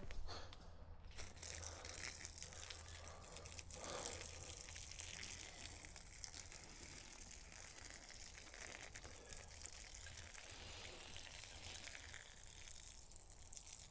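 A person urinating onto the ground: a faint, steady trickling stream that runs on for several seconds.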